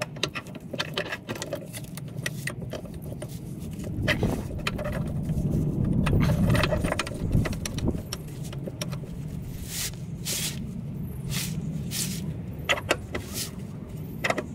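Metal clinking and rattling of an NP231 transfer case's drive chain, sprocket and output shaft being worked into the case by hand, a run of small sharp clinks with a louder, fuller stretch in the middle.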